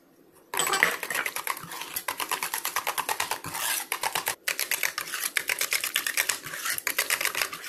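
Stainless wire whisk beating thick batter in a metal saucepan, its wires clicking rapidly and rhythmically against the pan, several strokes a second. It starts about half a second in and pauses briefly about four seconds in.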